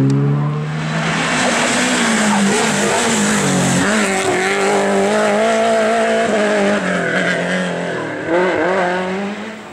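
Rally car engine revving hard as the car slides sideways through a dusty bend, tyres scrabbling and flinging grit with a steady hiss. The engine note dips about four seconds in and climbs again, wavers once more near the end, then fades as the car pulls away.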